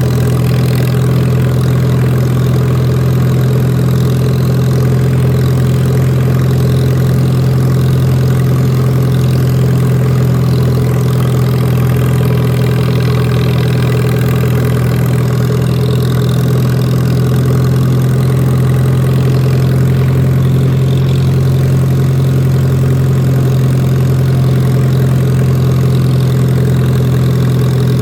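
Lawn mower engine running steadily at a constant speed, with a strong low hum, while cutting grass.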